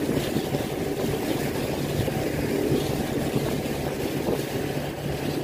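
Engine of a cruising yacht under way: a steady, unchanging hum over a constant rushing noise.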